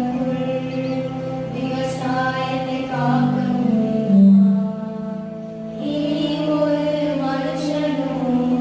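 Music: a song with long held sung notes over a steady low drone.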